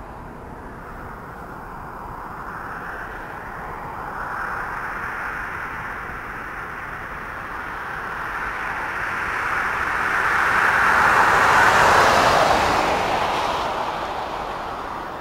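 Rushing noise of a passing vehicle, building slowly to a peak about twelve seconds in and then fading.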